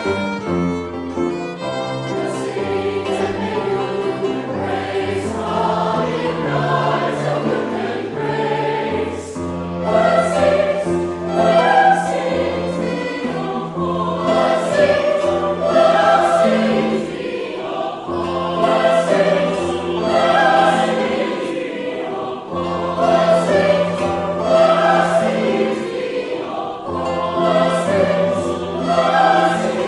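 A mixed choir of men's and women's voices singing, in phrases that swell and fade every couple of seconds over a held low line.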